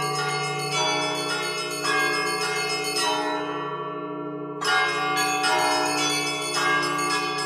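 A set of eleven Orthodox church bells rung by one ringer from a rope-and-pedal console: the smaller bells are struck about once a second in a rhythmic pattern over the steady hum of the large bells. The small bells drop out after about three seconds, leaving only the low hum, then come back in with a loud strike near the five-second mark.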